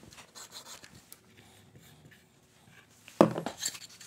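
Pencil scratching marks on a pine board, then a single sharp knock about three seconds in as the wooden parts are handled on the workbench, followed by a few lighter clatters.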